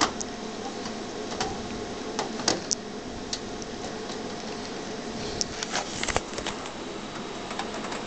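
Scattered light clicks and taps of metal parts being handled as a graphics card's bracket is fastened into a computer case. They come in a small cluster about six seconds in, over a steady low hum.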